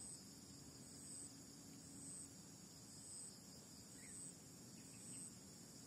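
Near silence, with a faint high-pitched insect chirp repeating about once a second.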